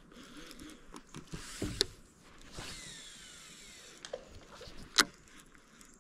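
Fishing reel during a cast: a sharp click, then line running off the spool with a whine that falls in pitch, and a second sharp click near the end as the reel is engaged.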